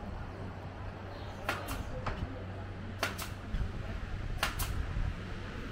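Outdoor pedestrian street ambience with faint voices and a steady low hum, crossed by sharp double clicks that repeat about every second and a half.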